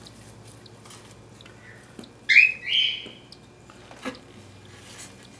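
A cockatiel gives two short, loud, rising squawks a little over two seconds in, with a few faint taps and clicks around them.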